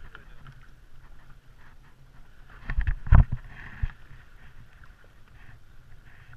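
Water lapping around a kayak with wind on the microphone, and a cluster of loud knocks and thumps about three seconds in, then one more shortly after.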